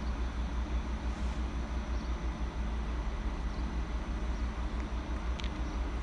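ICE 3 high-speed train standing at a platform, its on-board equipment running with a steady low hum and rumble. A brief faint click about five seconds in.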